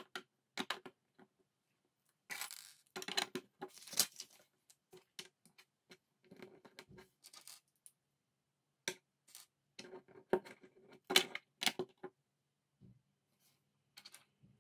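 Plastic LEGO bricks clicking and clattering as hands press them onto a build and pick through a loose pile, in irregular bursts of small clicks and rattles.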